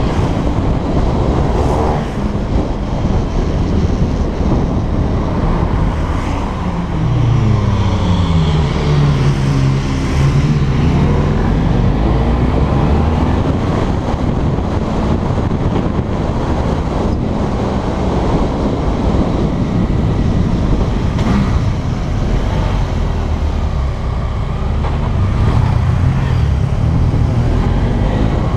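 Motorcycle engine running under way, heard from the bike itself, with heavy wind rush on the microphone. About a third of the way in the engine note falls and then climbs again, and it rises again near the end.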